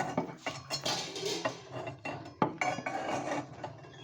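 Metal utensils, dishes and cutlery clinking and clattering as they are handled and set down, with several sharp knocks, the loudest about two and a half seconds in.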